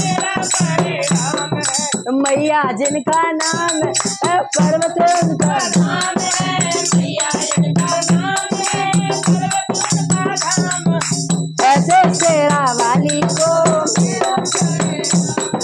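Devotional bhajan sung by a boy with women's voices joining, over a dholak drum beat, a plastic clapper rattle shaken in a steady rhythm about three times a second, and small hand cymbals.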